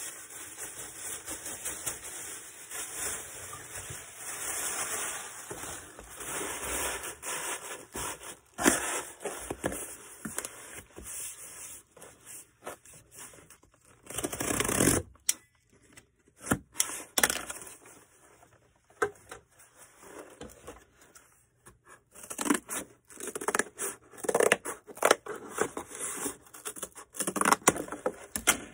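Cardboard shipping box being cut down and handled by hand. A long stretch of scraping and rustling comes first, then a louder tearing sound about halfway through, then scattered short scrapes and knocks.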